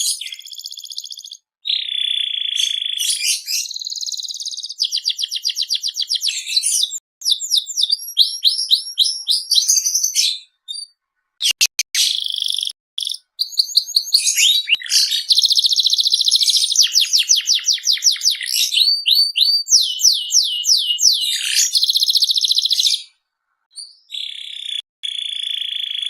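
Domestic canary in full, vigorous song: long rapid rolls and trills alternating with fast series of sharp chirps, broken by two short pauses.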